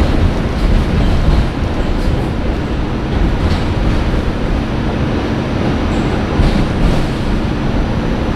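NYC subway Q train running along the rails, heard from inside the car: a loud, steady rumble of the wheels and car as the train moves into an underground station.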